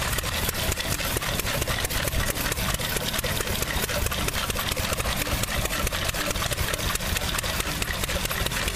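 Small vintage stationary gas engine running steadily with a rapid, even beat as it powers a drag saw, the long blade cutting back and forth through a log.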